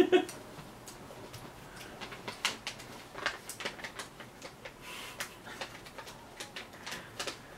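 Close-up chewing of a piece of jerky: a string of irregular soft clicks and mouth smacks.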